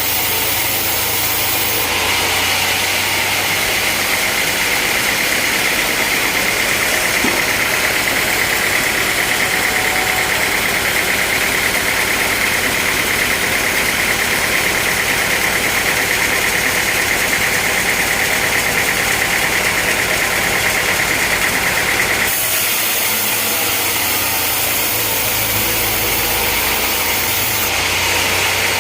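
Sawmill machinery running steadily at a constant engine speed. A high steady whine from the saw starts sharply about two seconds in and cuts off abruptly about seven seconds before the end, when the engine's low hum comes forward again.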